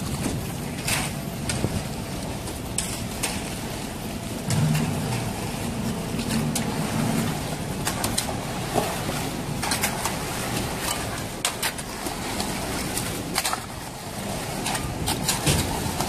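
Steady low machine rumble of a mobile concrete mixer pump running while it feeds concrete through the delivery hose. Irregular sharp clicks and scrapes of shovels working the wet concrete over steel rebar sound over it.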